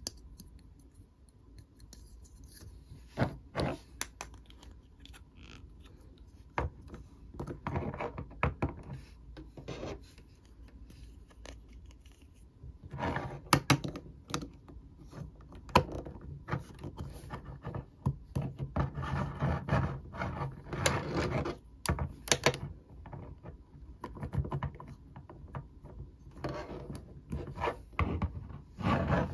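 Small plastic toy parts being pushed into and rubbed against a plastic Mrs. Potato Head body: scraping and rubbing, broken by scattered sharp clicks, busiest in the middle stretch and again near the end.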